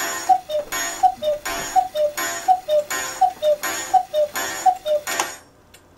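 Restored cuckoo clock calling the hour: its two-note cuckoo, a higher note followed by a lower one, repeats seven times, about one call every three quarters of a second. It stops with a sharp click a little after five seconds in.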